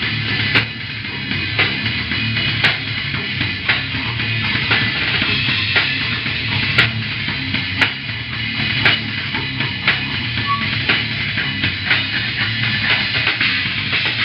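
Live slam death metal band playing a slow, heavy groove: down-tuned guitar and bass under drums, with a sharp drum hit about once a second. The recording is tinny.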